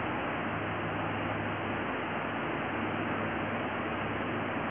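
Steady hiss of background room noise with a low hum underneath, unchanging throughout; no distinct marker strokes or other events stand out.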